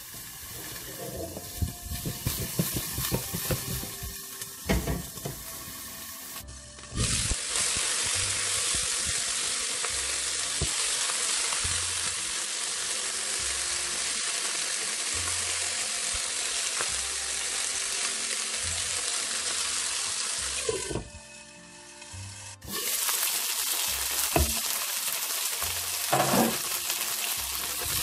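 Chicken wings sizzling in hot oil in a non-stick wok, crackling at first, then a dense steady sizzle from about seven seconds in, with a brief dip a little past twenty seconds. Near the end a few sharp clicks sound over the sizzle as wooden chopsticks turn the golden-browned wings.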